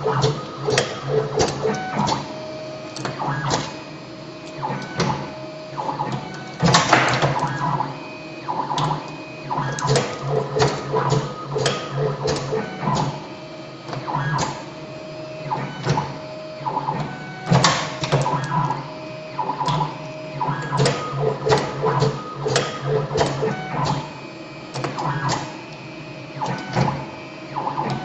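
Automatic wire stripping and bending machine working through cycle after cycle on insulated wire. Its motors whine in short runs, punctuated by repeated sharp clacks from the cutter, stripping blades and bending head.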